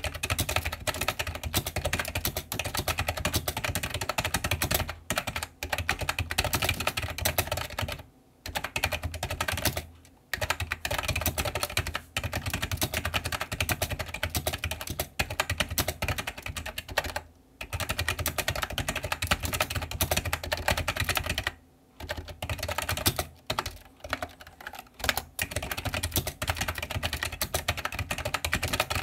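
Fast typing on an iMAGiC GKEYBOARD II ECHO plunger-switch keyboard: a dense, continuous run of keystroke clacks, broken by a few brief pauses.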